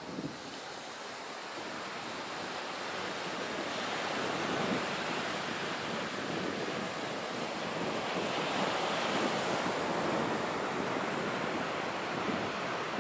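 Ocean surf washing onto a beach, mixed with wind buffeting the microphone: a steady rushing that slowly swells louder toward the middle.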